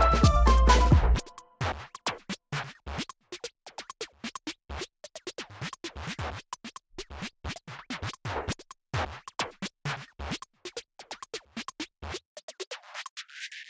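Electronic background music. A full, loud beat cuts off about a second in, and short choppy stutters and clicks follow. Near the end the bass is filtered out.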